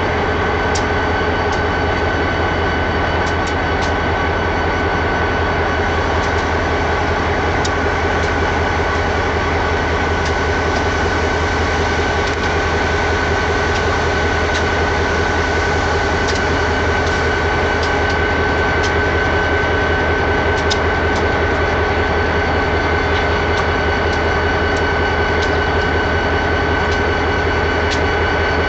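Union Pacific diesel-electric locomotive idling while stopped: a steady low engine rumble with a constant high whine over it and a few faint ticks.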